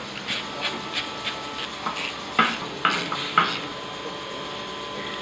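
Ratchet wrench clicking as it tightens nuts onto a strut spacer's studs, mixed with light metal clinks; three sharper clicks come about half a second apart near the middle, then it goes quieter.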